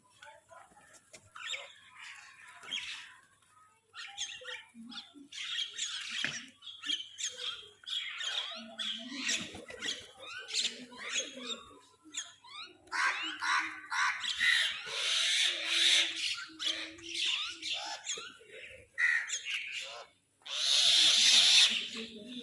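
Several crows calling harshly over one another in a squabble over food, a string of overlapping squawks with the loudest burst near the end.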